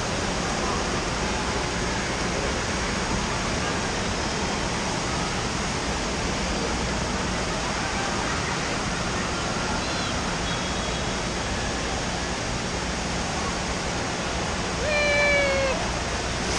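Steady rush of falling and splashing water mixed with crowd noise in an indoor water park. A short call rises out of it near the end.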